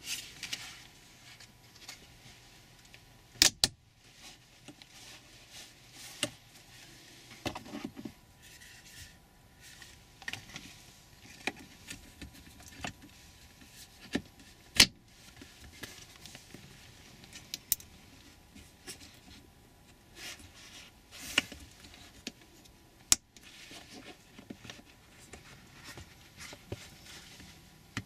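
Hard plastic interior trim of a Toyota RAV4's center console and shifter being handled and fitted back together: irregular sharp clicks and snaps of clips and panels, with light rattling and rustling of the trim and shift boot between them.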